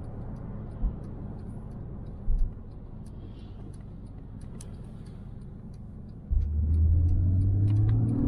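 Porsche 997 Carrera S's 3.8-litre flat-six heard from inside the cabin: a low steady drone with road rumble and a couple of short thumps, then about six seconds in the engine note suddenly gets much louder and deeper as the throttle is opened hard.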